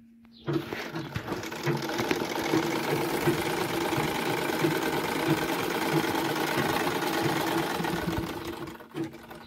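Vintage black Gloria sewing machine running and stitching steadily. It starts about half a second in and stops near the end.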